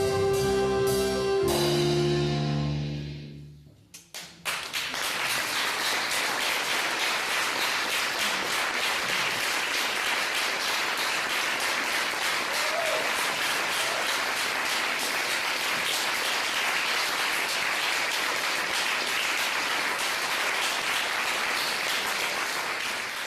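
A band's final held chord rings out and fades over the first few seconds, then the audience breaks into sustained applause, steady and dense for the rest of the time.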